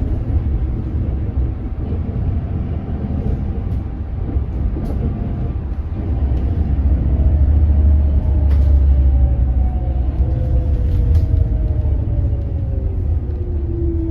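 Cabin sound aboard a Hyundai Elec City hydrogen fuel-cell bus: a steady low rumble under the electric drive motor's whine, which slowly falls in pitch over the second half. Occasional clicks and rattles sound now and then. The uploader finds this motor noise strange.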